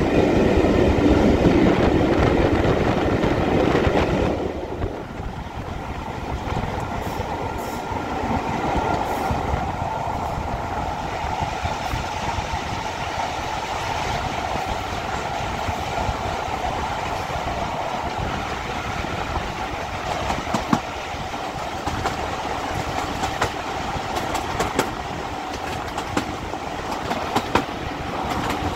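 Heritage diesel-hauled train running on the line, with steady engine and running noise and scattered clicks of wheels over rail joints. Louder with several steady tones for the first four seconds, then drops to a steadier, quieter run with a held whine.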